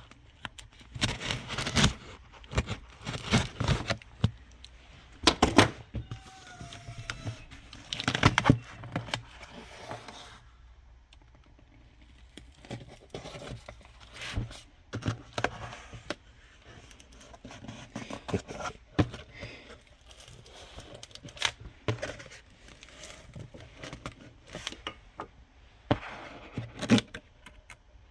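A cardboard kit box being opened and handled: irregular tearing, scraping and rustling of cardboard and packing, with sharp knocks and clicks. Busiest in the first part, with a quieter stretch near the middle.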